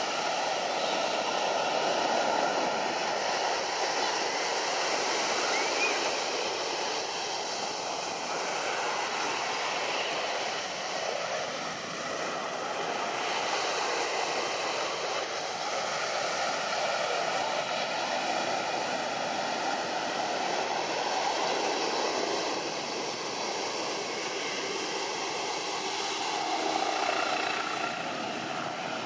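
Red Bull aerobatic helicopter, an MBB Bo 105, flying its display: a continuous rotor and turbine noise that holds fairly steady in level.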